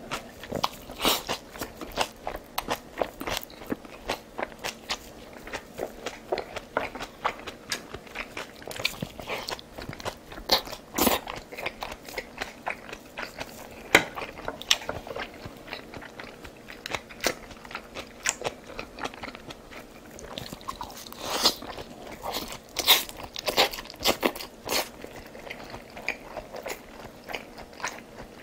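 Close-miked eating: crunching bites and chewing, with many sharp irregular clicks, several a second.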